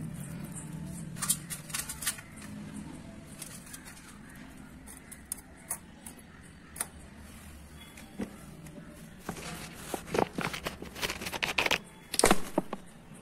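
Peeled garlic cloves clicking and clattering against a stainless steel plate and bowl as they are handled, in scattered taps with a dense run of clatter near the end.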